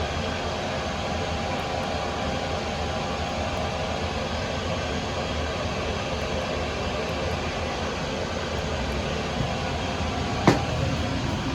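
Steady rushing cabin noise inside an Airbus A350-900, with a faint steady hum. A single sharp click comes near the end.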